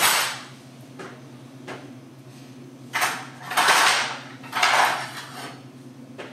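Kitchen handling noises at a counter: several short scraping, clattering sounds of things being moved about, the loudest from about three and a half to five seconds in, over a steady low hum.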